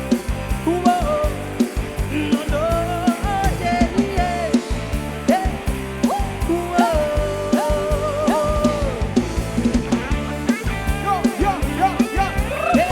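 Live Thai rot hae band music: a drum kit beat and heavy bass under a lead melody that slides between notes and holds one long note about two-thirds of the way through.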